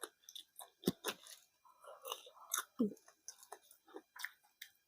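Close-miked chewing: a person eating, with irregular wet mouth sounds and crisp crunches.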